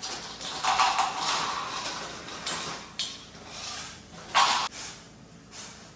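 Plastic bag of dry pasta crinkling in several short bursts as the pasta is tipped into a pot of boiling water, the loudest burst about four and a half seconds in.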